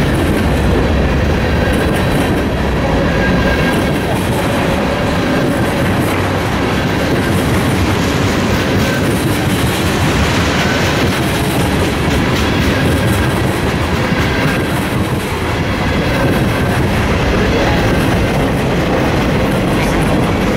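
Freight train cars rolling past at speed: a steady heavy rumble with wheels clacking over rail joints.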